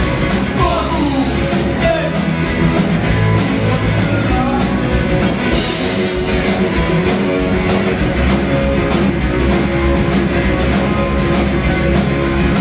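Live rock band playing loud, with distorted electric guitar and drums driving a steady beat, cymbals struck about four times a second.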